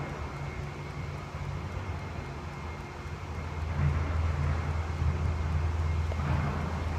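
A low, steady rumble that grows louder about halfway through.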